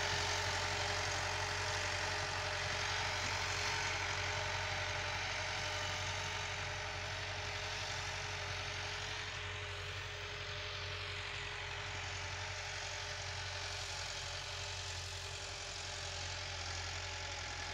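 Massey Ferguson 375 tractor's four-cylinder diesel engine running steadily under load while pulling a laser land leveler through loose soil. The strain on the engine shows that the leveler's blade is carrying earth and the field is being levelled properly. It grows slightly fainter as the tractor moves away.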